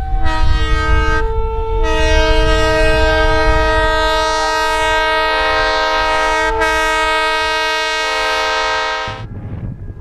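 Locomotive air horn sounding a long blast, several notes held together as a chord, that cuts off about nine seconds in. Under it is the low rumble of the train ploughing through deep snow.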